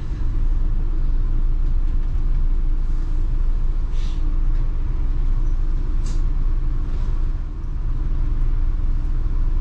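Double-decker bus under way, heard from the upper deck: a steady low engine and road rumble, with two short hisses about four and six seconds in.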